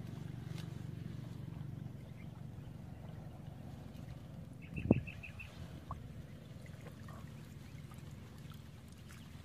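Shallow muddy water sloshing and swirling as someone wades and crouches in it, with one sharp knock or splash about five seconds in.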